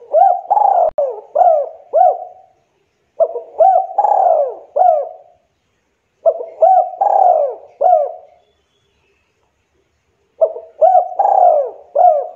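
Spotted dove (tekukur) cooing: four phrases, each a quick run of four or five coos, with short pauses between them.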